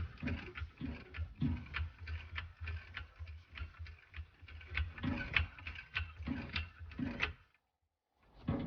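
Car jack being worked to lift the car, a rhythmic run of mechanical clicks and knocks that stops about seven and a half seconds in.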